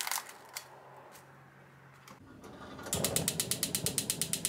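Gas stove burner being lit: the igniter clicks rapidly, about ten clicks a second, starting about three seconds in, over the low rush of the gas catching. Near the start, a few crinkles of cling film being smoothed over a plate.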